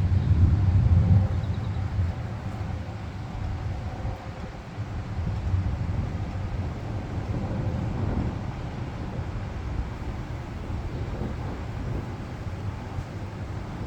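Thunder rumbling through steady rain, loudest in the first second and then dying down, with lower rumbles swelling again about eight seconds in.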